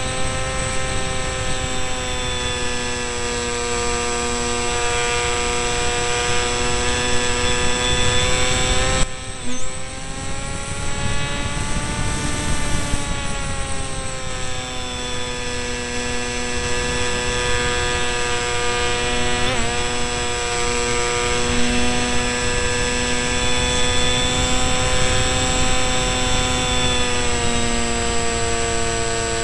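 Electric motor and propeller of an RC delta-wing model whining steadily, heard from the onboard camera with a rush of air noise underneath. About nine seconds in the pitch drops abruptly, then swells up and falls back over the next few seconds before settling steady again.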